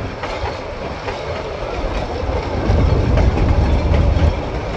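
A train running along the track, a heavy rumble with rail clatter that grows louder about halfway through.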